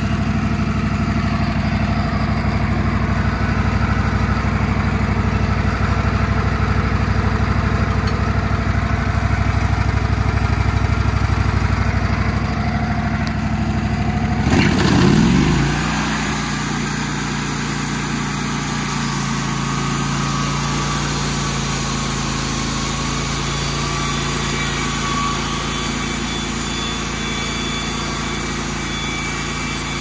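Wood-Mizer portable band sawmill's engine running steadily. About halfway through its sound shifts briefly, then it runs on slightly quieter with more high hiss.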